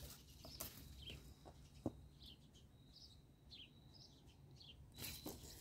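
Faint bird chirps over near silence, with a single small click a little under two seconds in and a brief rustle near the end.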